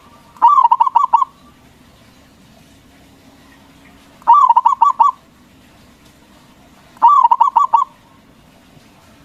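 Zebra dove (perkutut) singing: three cooing phrases a few seconds apart, each a quick run of five or six notes.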